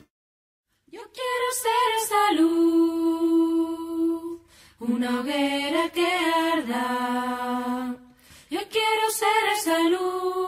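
Unaccompanied singing (a cappella) of a Spanish-language song, in three long phrases with held notes, starting after a short silence.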